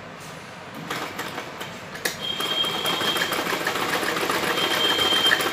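Sewing machine stitching through a layer of cotton fabric. It starts about a second in and gets louder as it picks up speed, a rapid run of needle-and-mechanism ticks with a high squeak coming and going twice.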